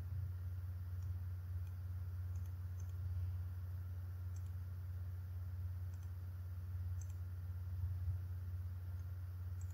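A handful of faint, sharp computer mouse clicks, scattered irregularly over a steady low hum.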